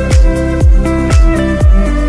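Electronic background music with a steady beat about twice a second under held chords.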